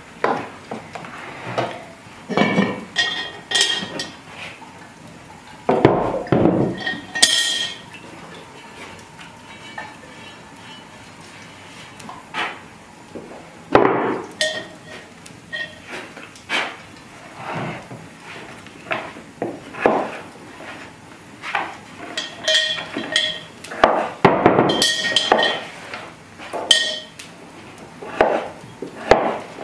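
A knife chopping carrots on a wooden cutting board, mixed with irregular knocks and clanks of cast-iron pots and a lid being handled. Some of the metal clanks ring briefly.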